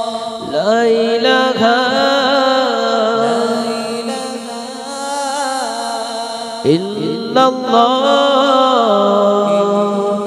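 Male voices singing a Bengali gojol, an Islamic devotional song, into microphones, with long held notes and sweeping pitch glides.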